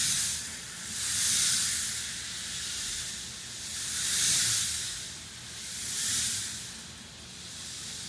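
K'nex model roller coaster train rolling along its plastic track: a high hissing whir of the wheels that swells and fades four or five times as the train comes near and moves away.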